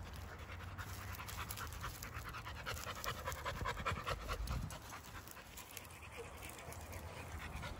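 A dog panting rapidly and steadily.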